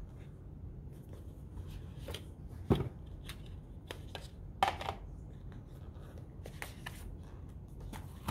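Cardboard smartphone box packaging and paper inserts being handled: light rustles and scrapes, with two louder knocks or snaps about three and five seconds in.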